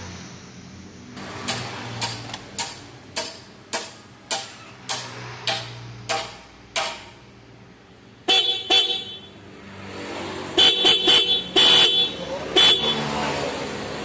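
Motorcycle electric horn, wired through a newly fitted four-pin relay, being tested: about eleven short quick toots, then louder honks in short bursts, a quick run of them near the end.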